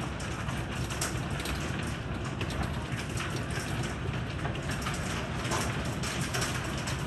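Heavy rain mixed with hail pelting a wooden deck and railing: a dense, steady patter studded with many sharp clicks of hailstones striking the boards, over a steady low rumble.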